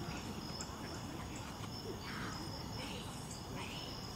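Insects chirping in a steady high-pitched trill.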